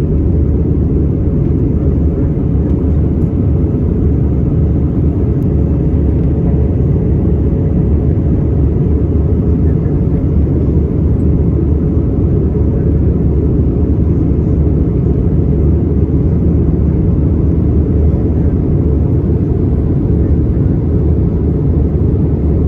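Airbus A320 cabin noise in flight: a steady, loud engine and airflow drone, heaviest in the low range, with a faint steady hum on top.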